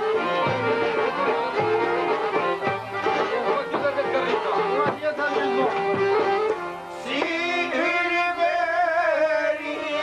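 Albanian folk music: a melodic instrumental passage over a steady beat, then a singing voice comes in about seven seconds in.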